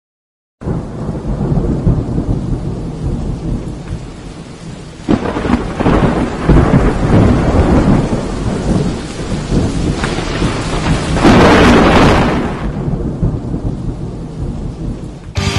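A thunderstorm: steady rain and rumbling thunder, with two louder rolling claps, one about five seconds in and one about eleven seconds in.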